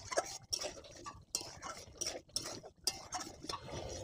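A metal spatula stirring gravy in a metal kadai, scraping and tapping against the pan in short irregular strokes, about three a second.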